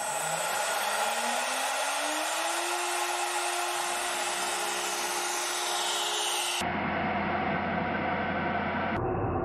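An Avid CNC router's spindle spinning up: its whine rises in pitch over about three seconds, then holds steady over a constant rush of air noise. About two-thirds of the way through, the sound turns abruptly duller and lower, with more rumble.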